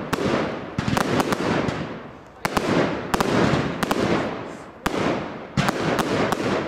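Aerial fireworks bursting in quick succession: four or five loud bangs a second or two apart, each dying away, with sharp cracks in between.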